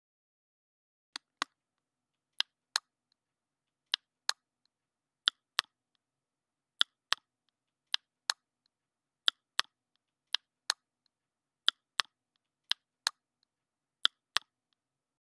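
Ticking-clock sound effect: sharp double clicks, tick-tock, about one pair every second and a third, with dead silence between.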